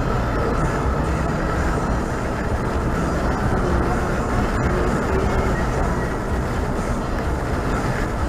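Steady rumble of a vehicle driving along a highway: tyre and engine noise with no distinct events.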